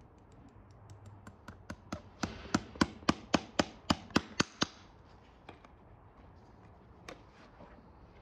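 A farrier's driving hammer striking a horseshoe nail, driving it through a steel shoe into the hoof wall: light taps that build to harder, ringing blows at about four a second, then stop. Two lone faint clicks follow.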